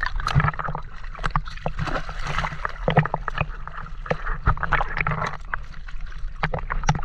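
Seawater splashing and sloshing against a camera held at the water's surface, with many short sharp splashes as swimmers lift and handle a freshly caught octopus.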